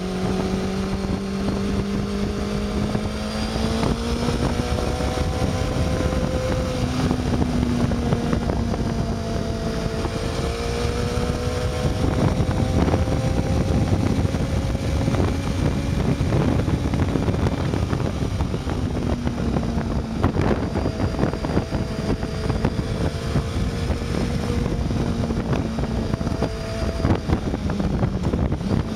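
Honda CBR600 F2's inline-four engine running under way. Its note climbs over the first several seconds, then drops and settles at steadier pitches as the rider changes speed through the bends. Heavy wind rush on the microphone runs under it.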